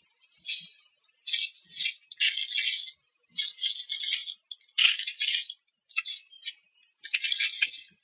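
Dry sticks and grass of a bald eagle nest rustling and crackling as the eagle arrives, lands and steps through the nest, in a string of short bursts about one a second.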